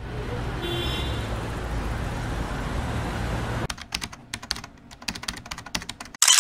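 Street traffic ambience, a steady rush with a low hum, giving way about two-thirds of the way through to computer keyboard typing, irregular quick clicks. A loud, sharp burst comes near the end.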